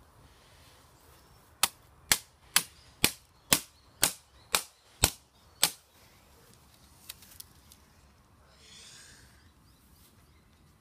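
An iPad mini being struck nine times in quick succession with a small metal hand tool, sharp impacts about two a second. Two faint ticks and a brief soft rustle follow.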